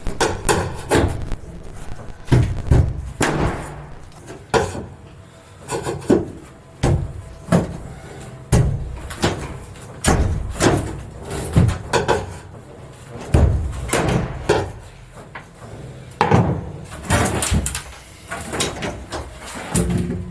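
Irregular knocks and bangs, one or two a second, as wooden panels and braces are worked loose from a boat's riveted interior during tear-down.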